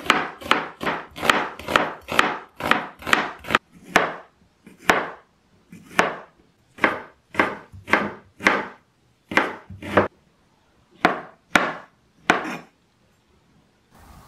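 Chef's knife cutting onion and then carrot on a cutting board, each stroke a sharp knock of the blade on the board. The chopping is quick for the first few seconds, about four strokes a second, then slows to uneven strokes and stops about twelve seconds in.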